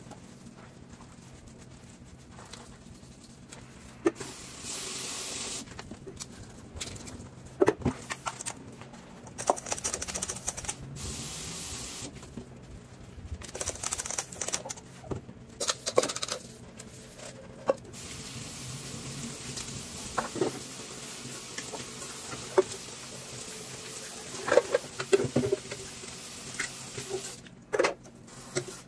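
Washing dishes by hand at a kitchen sink: the tap runs in several short stretches between the scrubbing of a sponge on pots and the knocks and clinks of pans and utensils against the sink.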